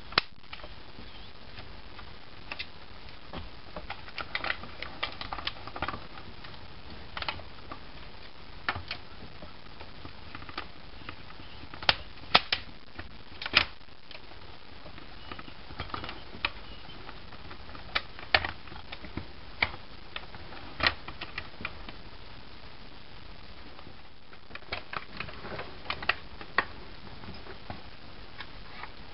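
Irregular clicks, clacks and knocks of airsoft rifle and grenade launcher parts being handled and fitted together, some singly and some in quick little clusters, over a steady hiss.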